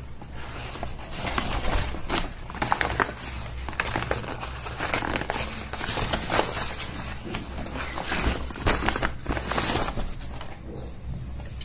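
Brown kraft-paper mailer bag crinkling and rustling irregularly as it is opened and a pair of jeans is pulled out of it.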